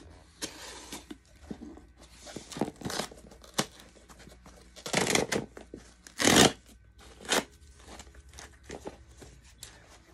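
A cardboard record mailer being cut with a folding knife and its flap torn open: a run of scraping, ripping and crunching noises, the loudest about five and six seconds in.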